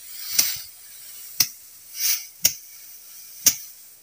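Paddy rice being threshed by hand: a stick beats the cut rice straw in steady sharp whacks about once a second, four in all, with a short rustling swish between strikes.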